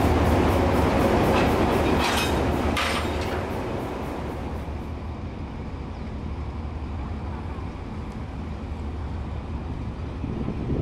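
Diesel-electric locomotive No. 4511 running close by: a heavy engine drone with a rapid, even ticking over it. A couple of sharp streaks come about two to three seconds in, then it drops to a quieter, steady rumble.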